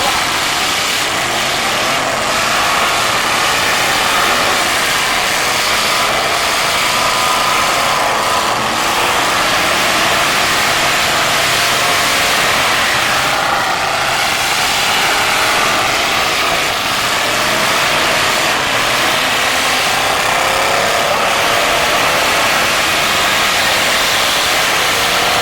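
Several demolition derby cars' engines running hard and revving together, their pitches wavering up and down as the cars accelerate and push.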